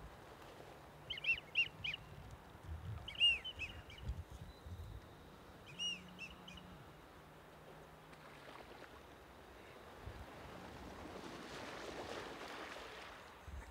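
A flock of ducks calling in flight overhead: short, high, arched calls come in three quick clusters over the first six seconds. A soft rush swells and fades near the end.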